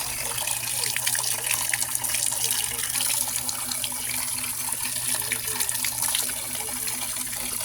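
Free-flowing water pouring without pause from an open outlet, splashing steadily.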